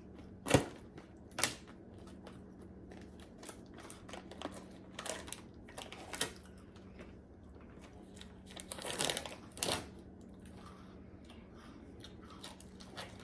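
A snack wrapper being worked open by hand, which resists opening: scattered crinkles and tearing of the packaging, with a longer rustling stretch about nine seconds in.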